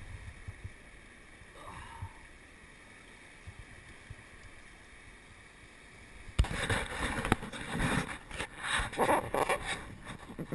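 River water running over rocks, faint and steady; about six seconds in, several seconds of loud, irregular splashing and rustling close to the microphone.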